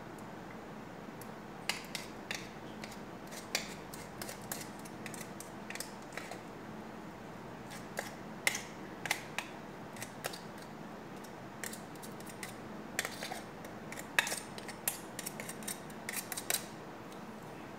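Irregular light clicks and taps of a blade cutting cheese into small pieces, in scattered clusters over a steady background hum.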